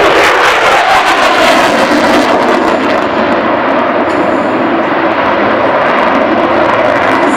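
F-16 fighter jet engine running loud as the jet flies its display towards the crowd, crackling in the first few seconds, then a steady rushing noise.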